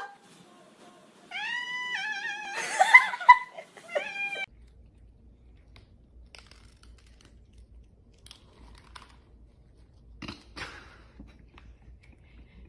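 Kitten meowing for food, a quick run of high, pitch-sliding meows in the first few seconds. After that there are only faint clicks and crunches of dry kibble being eaten.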